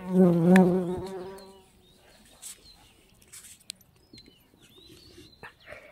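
A flying insect buzzing close past the microphone, loud for about a second and then fading away.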